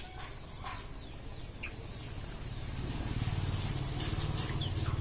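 Outdoor rural ambience: a low rumble that grows louder about halfway through, with a few faint bird chirps.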